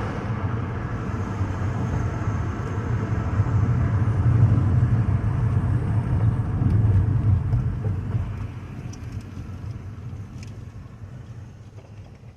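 Car running down the road, heard from inside the cabin: a steady low rumble of engine and tyre noise that swells around the middle, then dies away over the last few seconds.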